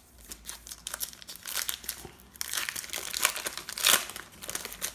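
Crinkling of a trading-card pack's wrapper as it is handled, in a run of irregular crackles with the loudest crunch near the end.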